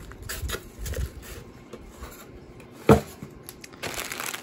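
Hands handling a model locomotive's box packaging: light rustling, rubbing and small clicks, with one sharp knock about three seconds in.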